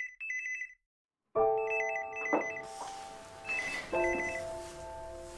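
A telephone ringing with a rapid trilling double ring, the call the girl has just foretold. It cuts to dead silence for about half a second. Then music with sustained chords comes in, and the trilling ring sounds twice more over it.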